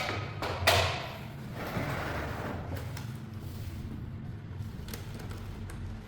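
A rice cooker's parts being handled during reassembly: one sharp knock less than a second in, then a short sliding scrape, with a low steady hum underneath.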